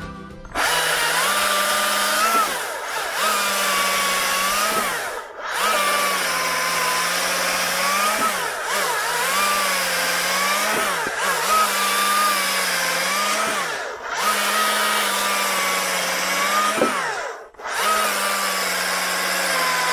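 Stihl MSA 220 battery chainsaw cutting through small logs. The electric motor's whine dips in pitch each time the chain bites into the wood and climbs back between cuts. The saw stops briefly three times when the trigger is let off.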